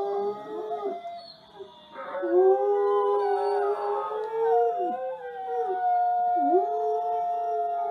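A Samoyed howling along with a wolf howling on a television. Two long, wavering howls at different pitches overlap: the lower one dips briefly in pitch several times while the higher one holds steady. There is a short lull about a second and a half in.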